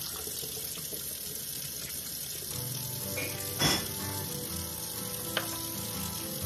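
Kitchen faucet running a steady stream of water into a sink full of dishes as a cup and a small plastic lid are rinsed under it. One sharp knock of a dish a little past halfway, and a lighter click near the end.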